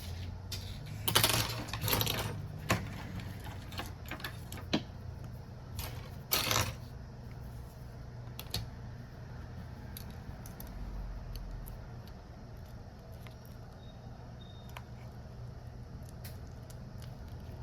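Small hand tools and phone parts clicking and scraping on a repair bench, with the loudest scrapes about a second in and again about six seconds in, then only a few scattered clicks, over a low steady hum.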